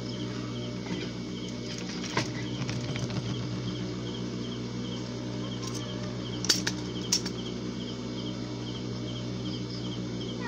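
Industrial sewing machine motor humming steadily, with a short burst of stitching about two seconds in and a few sharp clicks in the middle.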